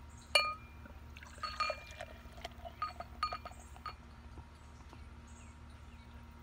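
Beer poured from a glass bottle into a pint glass, liquid splashing and glugging as it fills. The bottle clinks against the glass with a ringing tone about half a second in and several more times over the next few seconds.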